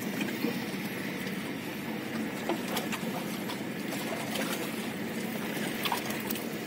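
Steady low drone of a distant boat engine over open-air harbour noise, with a few faint ticks.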